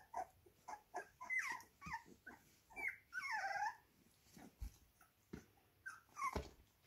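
Puppies vocalising while play-fighting: a string of short yips and growls, with one longer whine about three seconds in that slides down in pitch.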